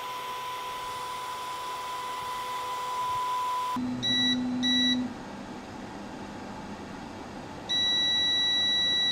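EPAX X1 resin printer's Z-axis stepper motor drives the build plate down into the resin vat with a steady whine, stopping abruptly about four seconds in. The printer then beeps loudly as the print starts: two short beeps, then a longer beep near the end.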